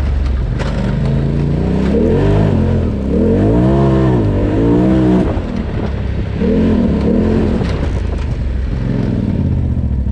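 Polaris RZR Turbo side-by-side's turbocharged twin-cylinder engine, driven hard in low gear on a wooded trail. It revs up and backs off about four times as the throttle is worked between turns.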